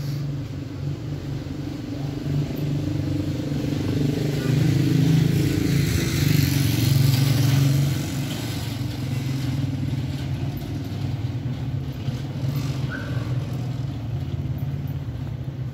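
Road traffic: a steady low engine hum, with a vehicle passing louder about four to eight seconds in.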